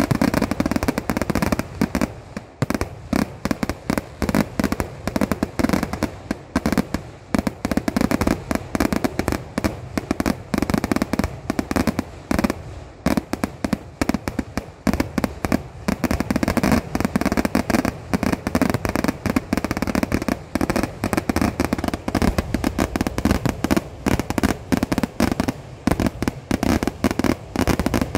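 Kerala temple fireworks (vedikettu) going off in a dense, unbroken barrage of bangs, many a second, so close together that they run into one another.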